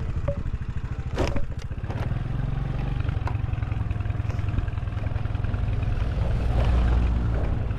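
A vehicle engine running steadily with a low rumble, growing a little louder near the end. A sharp clatter comes about a second in.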